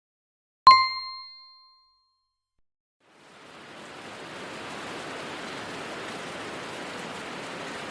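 A single bright ding rings out and dies away over about a second. After a short silence, a steady hiss of outdoor ambience fades in and holds.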